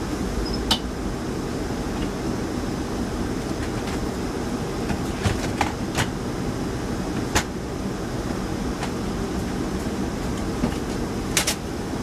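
Steady low machine rumble, with a handful of scattered sharp clicks and knocks.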